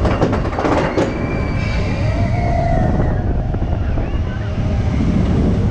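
Expedition Everest roller coaster train running along its track, a steady heavy rumble with a few sharp clatters in the first second.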